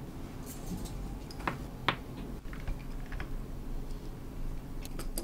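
Light wooden clicks and knocks from a hand-worked, jointed wooden toy figure as its limbs swing and strike, a few sharp clicks at irregular intervals.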